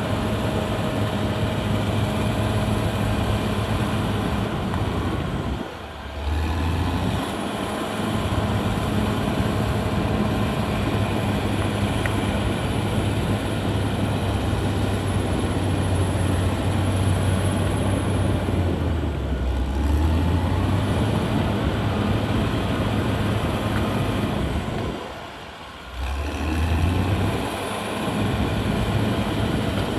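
Diesel engine of a Caterpillar D6R XL crawler bulldozer running steadily under working load, its pitch shifting now and then. The sound drops briefly twice, about six seconds in and again near the end.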